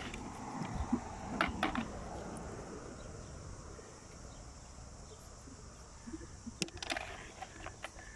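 Shells and pebbles on a shell-covered beach clinking and crunching in two short clusters, about a second and a half in and again near the end, over a faint steady high hiss.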